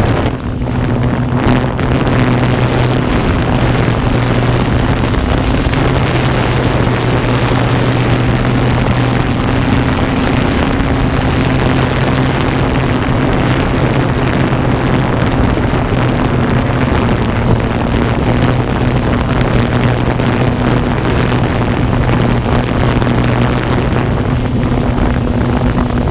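Multirotor drone's motors and propellers in flight, heard from the camera on board: a loud, steady hum with a rushing whir over it.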